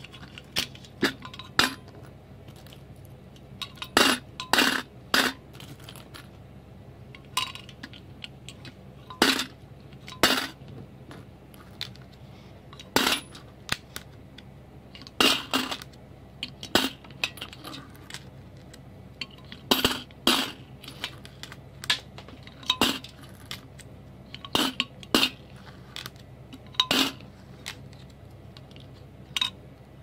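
Coins thrown one at a time into a piggy bank, each landing with a sharp metallic clink. The clinks often come in quick pairs or triplets as the coin bounces, irregularly spaced a second to three apart.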